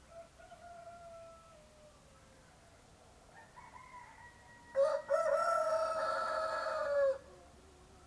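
Roosters crowing: faint crows in the first half, then one much louder crow starting about five seconds in, held for about two seconds and falling in pitch as it ends.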